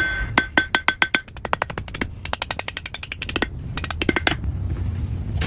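Blacksmith's hand hammer striking iron on an anvil while forging the end of a tool handle: quick runs of blows, several a second, the first few ringing clearly, stopping about four and a half seconds in.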